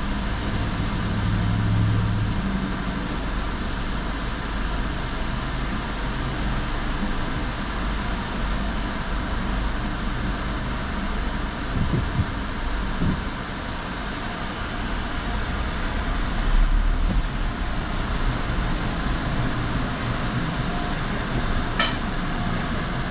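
Steady hum and rush of tunnel car wash machinery, with a car engine idling close by. A few short knocks come about twelve seconds in and again near the end.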